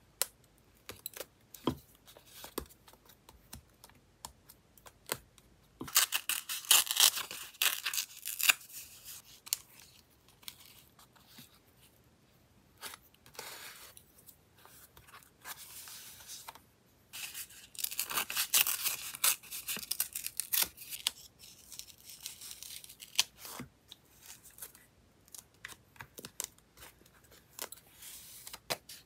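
Close-up paper-crafting sounds: scattered light taps and clicks of tweezers and paper pieces on a journal page. About six seconds in and again about halfway through come two longer stretches of scratchy paper rustling as the pieces are handled and pressed down.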